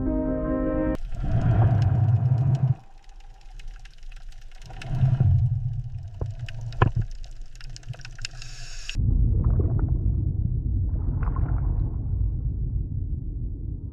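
Deep underwater ambience: low rumbling that surges twice, with scattered clicks and hiss, then settles into a steady low rumble about nine seconds in.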